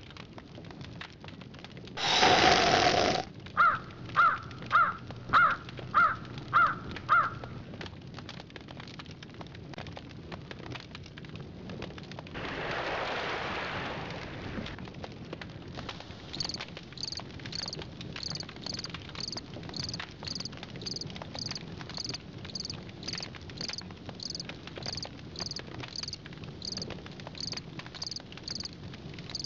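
Night ambience for a horror film: a loud rushing burst about two seconds in, then a crow cawing seven times at about two caws a second. A rushing swell rises and fades in the middle, and from about halfway on crickets chirp in a steady rhythm, about three chirps every two seconds.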